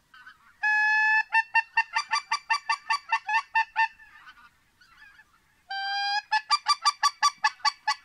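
Goose hunting call blown twice. Each time it gives one long held honk and then a fast, even run of short clucks at about nine a second, calling to a flock of geese overhead.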